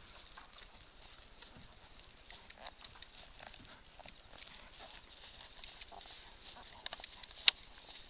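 Soft, irregular hoofbeats of a sorrel Paint gelding jogging and loping on grass, with light creaks and ticks of saddle tack, over a steady high-pitched hum. A single sharp click about seven and a half seconds in stands out as the loudest sound.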